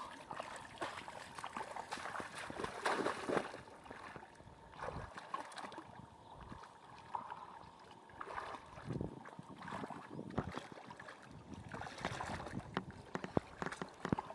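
Water splashing and trickling in uneven surges, with scattered sharp knocks and clicks.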